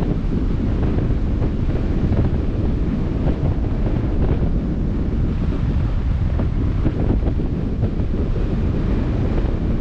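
Steady wind noise on the microphone over the wash of sea water, heavy in the low end, with no engine or voice.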